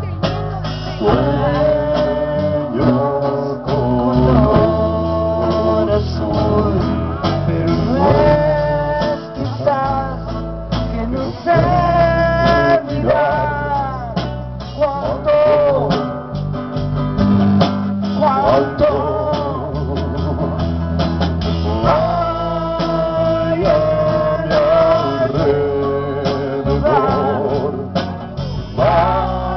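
A rock band playing live: guitar, bass and drums, with a lead melody on top that bends and slides in pitch.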